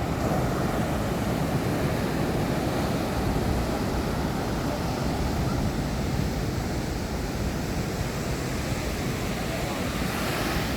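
Ocean surf washing onto the beach, with wind rumbling on the microphone; the wash swells near the end.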